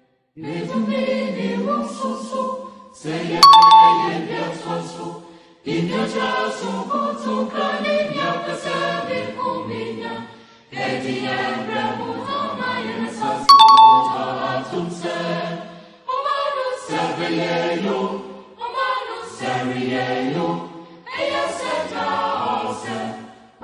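Background choir-style music sung in short phrases with brief gaps between them. Twice, about ten seconds apart, a bright bell-like chime rings out above the music, louder than it.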